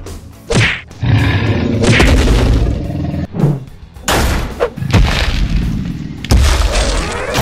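Cartoon fight sound effects: a rapid series of whooshes and heavy punch impacts with low booms, about six hits, over background music.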